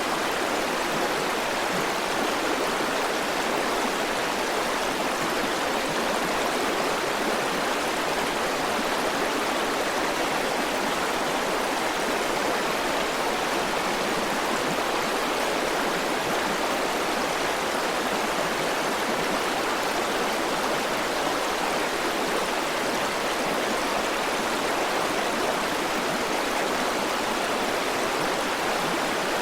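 River water flowing over rocks, a steady rushing and babbling with no breaks.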